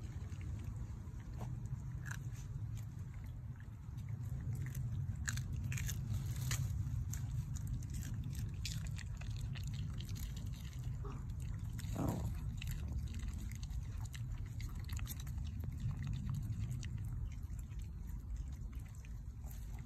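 Yorkshire terriers biting and chewing on garden pea pods and vines, with scattered crisp crunches and snaps over a steady low rumble. One brief louder sound comes about two-thirds of the way through.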